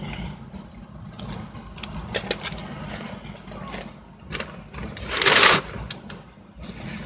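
Car engine idling with a steady low hum, under scattered small clicks and handling noises, with one loud burst of noise lasting about half a second, about five seconds in.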